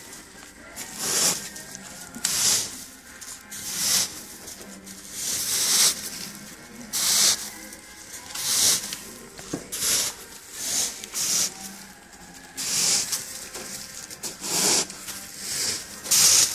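Clay granules crunching and scraping as gloved hands push small amaryllis bulbs down into the bed, in short rustling rushes about once a second at an uneven pace.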